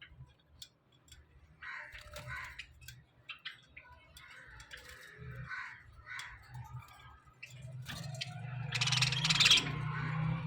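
A small group of budgerigars chirping and warbling in short bursts, with a louder, harsh squawking burst about two seconds before the end.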